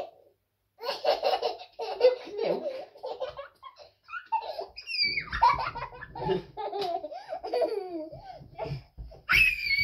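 Toddler laughing hard in quick bursts while being swung in a blanket, with a loud high squeal near the end.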